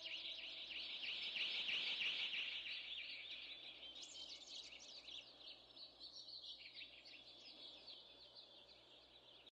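High, rapid chirping like a chorus of small birds, slowly fading. The held notes of a music track die away in the first half second.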